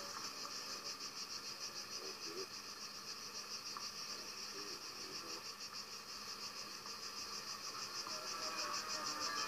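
Insects chirring in a rapid, even pulsing, high-pitched and continuous.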